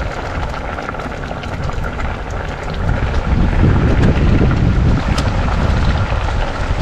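Wind buffeting the microphone out on the water, a heavy low rumble that grows stronger about three seconds in, with a faint steady hum underneath.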